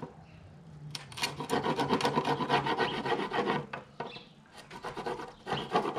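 Wood chisel pushed by hand through a dado in softwood framing lumber, scraping and paring out the waste in a quick run of short strokes, with a brief lull about four seconds in before the scraping resumes. The chisel is not the sharpest.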